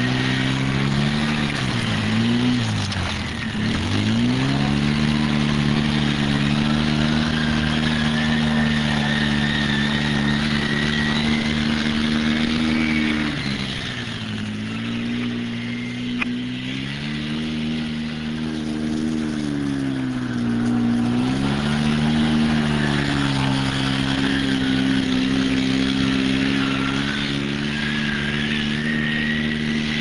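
Polaris RZR side-by-side's engine running as it is driven: the revs dip and pick up again several times in the first few seconds, then hold mostly steady, with two more dips about halfway and two-thirds of the way through. A thin high whine runs alongside, slowly rising in pitch.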